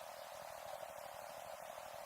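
Faint, steady hiss with no distinct event: background noise only.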